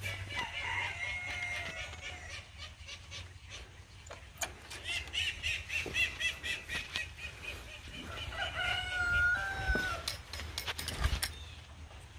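Fowl calling: strings of short repeated calls, and a longer drawn-out call about nine seconds in. Over them come sharp metallic clicks and clanks from a metal door hasp and latch being worked.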